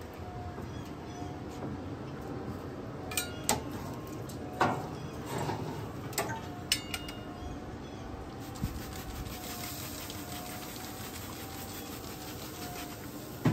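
Metal tongs clinking and scraping against a pellet grill's steel grate as a rack of ribs is turned, a few scattered clicks in the first half, over the steady hum of the running grill.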